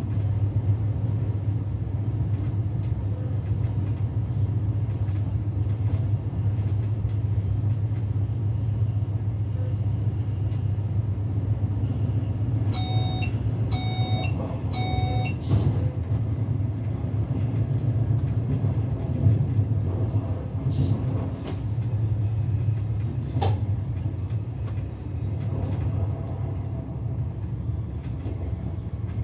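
Steady low hum and rumble of an SLM Re 450 / DPZ double-deck S-Bahn push-pull train running, heard from the driver's cab. About thirteen seconds in come three short electronic beeps in quick succession, and a couple of sharp clicks or knocks follow later.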